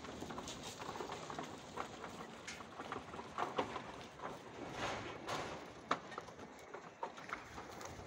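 Irregular knocks and clatter from a herd of goats' hooves moving about a pen, with a few louder knocks.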